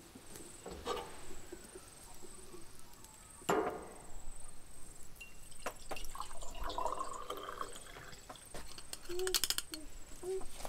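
A sharp knock a few seconds in, then water poured from a collapsible camping kettle into a cup for about two seconds.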